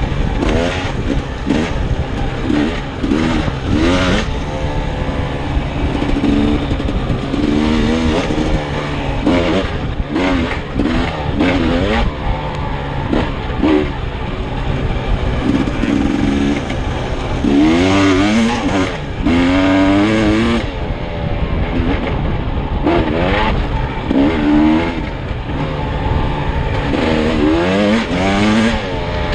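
Dirt bike engine being ridden hard, its pitch rising and falling over and over as the throttle is opened and closed and the gears change.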